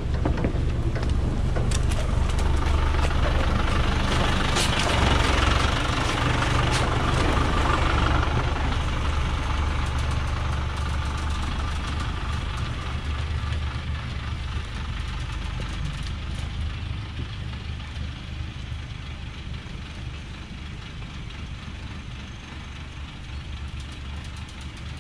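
Dongfeng logging truck's diesel engine running at low revs on a steep dirt track, louder and rougher in the first several seconds, then fading steadily as the truck gets farther away.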